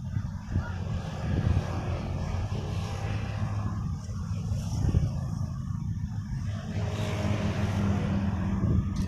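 A motor engine running steadily at an even pitch.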